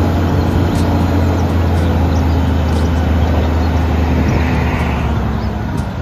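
Diesel engine of an eight-wheel tipper truck running steadily, a constant low hum, while the hydraulic ram raises the tipper body.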